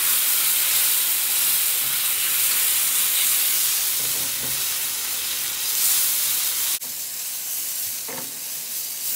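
Raw cubed chicken sizzling in hot oil in a frying pan, freshly added and being stirred with a plastic spatula. The loud hiss drops suddenly to a quieter sizzle a little before seven seconds in.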